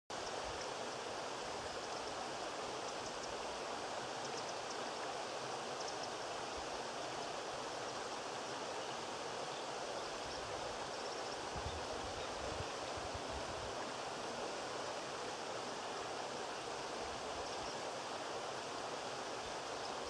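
Rocky moorland stream running over stones and small falls: a steady, even rush of water.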